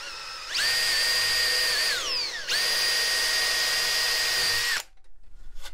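Cordless drill boring into the wooden wedge in a chair seat's spindle joint, drilling the wedge out piece by piece to free the joint. The motor runs with a steady whine, winds down about two seconds in, then starts again and runs until it stops near the end.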